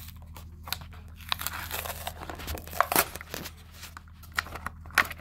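Cardboard-backed plastic blister pack of a die-cast toy car being torn open by hand: irregular crinkling and tearing with sharp snaps, the loudest about 3 and 5 seconds in.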